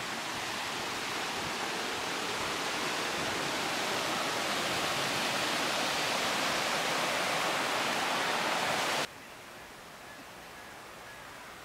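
Water pouring over a small stone weir on a stream: a steady rushing that cuts off suddenly about nine seconds in, leaving a faint outdoor hiss.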